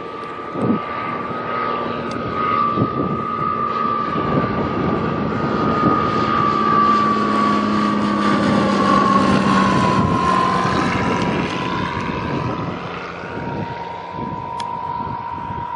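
A propeller-driven aircraft flying past, its engine drone growing louder toward the middle and its pitch dropping as it goes by.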